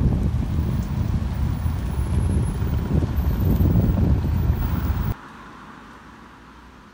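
City bus driving away, heard under heavy wind buffeting on the microphone as a loud, low rumble. About five seconds in it cuts off abruptly to a faint, steady hiss.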